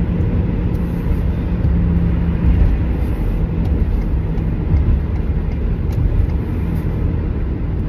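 Cargo van driving at highway speed, heard from inside the cab: a steady low rumble of engine and tyres on the road, with a faint even hum.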